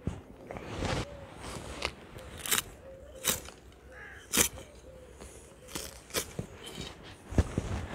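Carrot tops being cut by hand: irregular sharp snips and crunches of the stems and leaves, roughly one a second.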